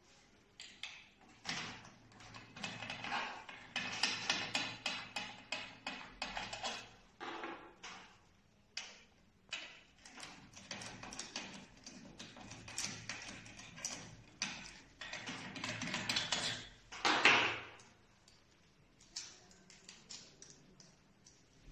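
Hand screwdriver turning long cross-head screws out of a YZ35 peristaltic pump head's housing, with screws laid on a wooden tabletop: a run of irregular clicks, scrapes and rattles, and one louder handling noise about three-quarters of the way through.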